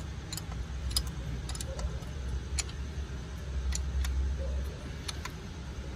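Light metallic clinks and ticks of tools and parts being handled, about a dozen scattered irregularly, over a low steady rumble.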